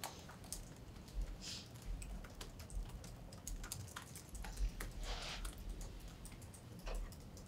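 Faint, irregular small clicks scattered through a quiet room, with a soft rustle or breath about a second and a half in and again about five seconds in.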